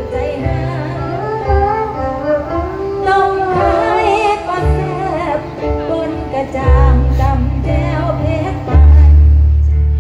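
A man imitating a Thai bowed fiddle (saw) with his mouth into a microphone: a wavering, sliding fiddle-like melody over musical accompaniment with a deep steady bass, which swells louder near the end.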